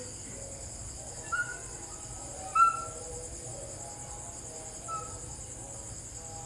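Steady high-pitched drone of insects, with three short squeaky animal calls rising slightly in pitch: one about a second in, a louder one about two and a half seconds in, and a fainter one near five seconds.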